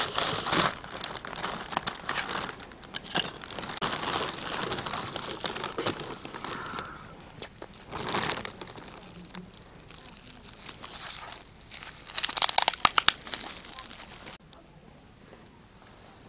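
Plastic packaging crinkling and rustling as gift parcels are unwrapped: a plastic courier mailer bag handled and clear plastic wrap pulled off jars. Louder spells of crackling come about 3 seconds in and again around 12 to 13 seconds, and it goes quieter near the end.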